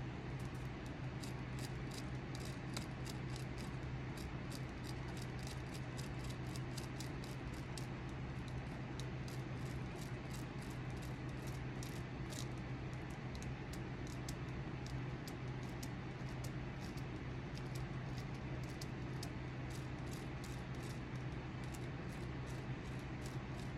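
A hand carving tool scraping and cutting into a wooden walking stick handle in quick, short strokes, about three a second, thinning out in the second half, over a steady low hum.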